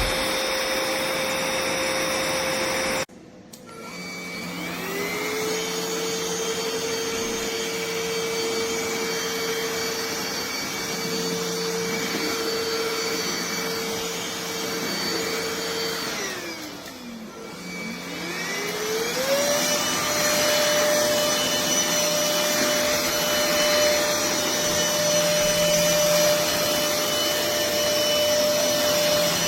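NADALY 500 W cordless stick vacuum's motor running with a steady whine that cuts off abruptly about three seconds in. It then spins up and runs steadily, winds down a little past the middle, and spins back up to a higher pitch.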